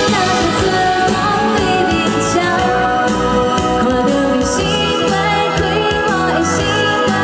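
Pop love-song soundtrack playing steadily, a singing voice over instrumental backing.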